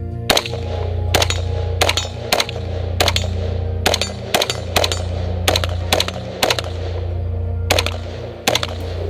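A string of about fifteen single gunshots, fired at steel targets at irregular spacing of roughly half a second to a second, over background music with a steady heavy bass.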